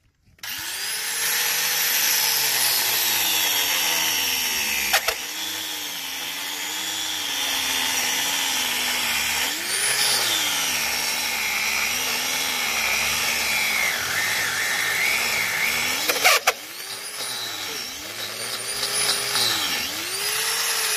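Angle grinder fitted with a core-drill bit boring a hole into a stone stair step. It starts up about half a second in and runs continuously, its motor pitch sagging and recovering again and again as the bit bites under pressure. Two brief sharp clicks come about five and sixteen seconds in.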